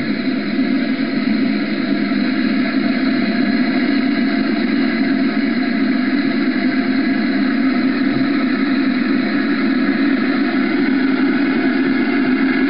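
Large radio-controlled scale helicopter, a Bell 430 model, running on the ground: a steady, unbroken engine and rotor drone, heard played back through a TV's speaker.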